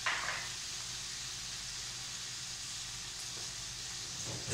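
Pickled greens sizzling steadily in a hot wok, left unstirred, over a low steady hum.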